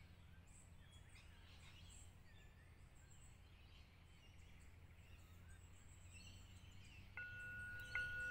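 Faint birdsong over near-silence, then a brass singing bowl struck with a mallet about seven seconds in and again a moment later, ringing with a steady clear tone. The bowl closes a period of silent prayer.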